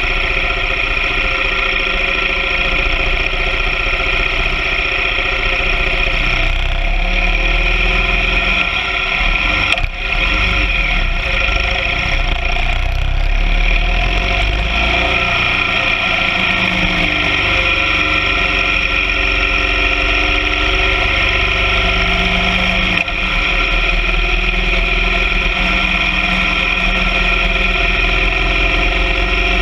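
BMW R 1200 GS Adventure flat-twin sidecar rig on the move: steady, heavily distorted engine and wind noise picked up by an onboard microphone. There are two brief dips, about ten seconds in and again near the end.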